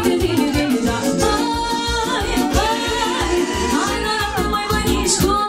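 Live band playing Romanian folk dance music, with a steady beat and a lead melody line.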